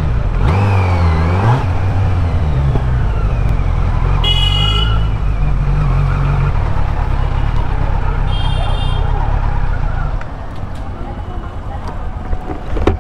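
Kawasaki Z900's inline-four on its stock exhaust, blipped up and back down once about a second in, then running steadily at low speed and dropping quieter about ten seconds in. A vehicle horn toots briefly twice, about four and eight seconds in.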